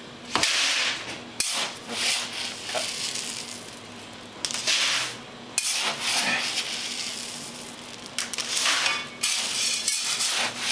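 Unroasted coffee beans being scooped with a metal scoop from a burlap sack and poured into a plastic-lined bucket, a rustling rattle of hard beans. The rattle comes in repeated scoopfuls, each lasting about a second.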